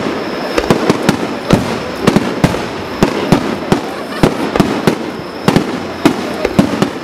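Fireworks display: shells fired in rapid succession, with sharp bangs about three a second over a steady crackling hiss.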